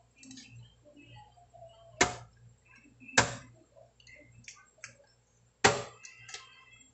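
A meat cleaver chopping through a raw chicken onto a cutting board: three hard chops, about two, three and five and a half seconds in, with a few light knocks between them.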